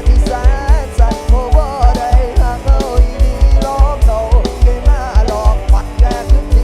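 Loud music played through a Thai rot hae sound truck's speaker system being sound-tested: a fast, heavy bass-drum beat of about four to five hits a second under a bending, gliding melody line.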